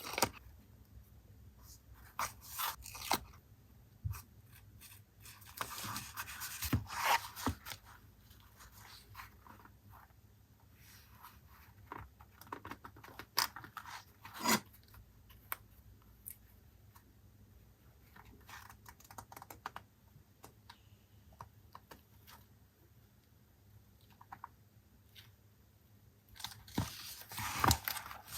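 Paper collage work: sheets of paper handled and torn, with scattered light taps and clicks. Two longer stretches of rustling and tearing, one about six seconds in and one near the end.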